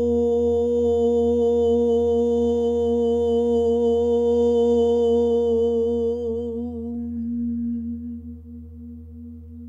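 A woman tones a long, sustained om on one steady pitch, together with a large Tibetan singing bowl ringing. Her voice fades out about seven seconds in, leaving the bowl's hum with a slow, wavering pulse.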